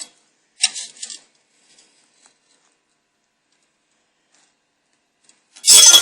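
Hand scraper rasping old sealant off an aluminium trim strip: one short scrape just after the start, a pause, then a much louder scraping clatter near the end.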